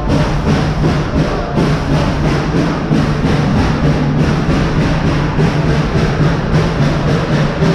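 Steam train rolling along: a steady low rumble with frequent short knocks of the cars over the track, and music playing over it.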